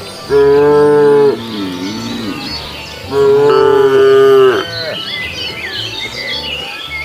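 A cow mooing twice: two long, loud calls about two seconds apart, the first sagging lower as it fades out.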